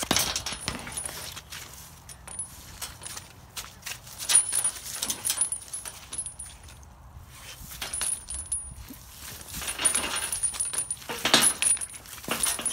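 Footsteps through grass and rustling handling of the camera, with irregular knocks and light metallic clinks, the loudest knock about eleven seconds in.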